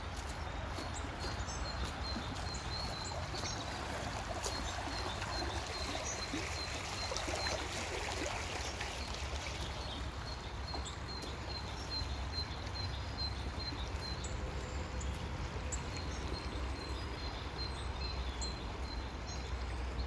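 Small forest brook flowing with a steady rush and trickle of water. Over it, a bird repeats a short high call about three times a second, in runs with short breaks.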